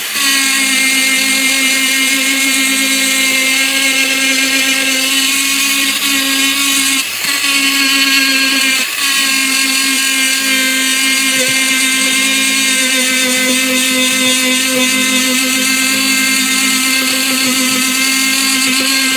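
Black & Decker rotary tool with a soft cloth polishing bit, running at a steady whine while buffing polish into the back of a metal watch case. The whine catches briefly twice, about seven and nine seconds in.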